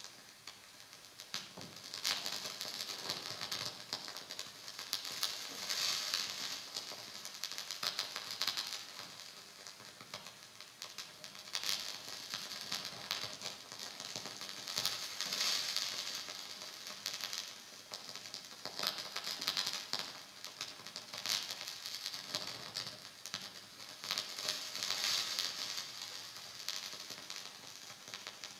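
Electronic noise music from a modular synthesizer and laptops: a dense crackling, sizzling texture full of fine clicks, swelling and fading in waves every few seconds.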